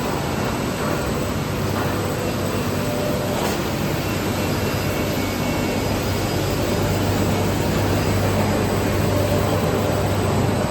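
Steady running noise of a rotary drum carbonization furnace, with its gas burners lit and air blower on, and a constant low hum underneath.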